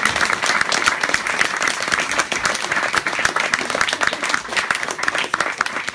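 Audience applauding: a steady, dense spread of hand claps.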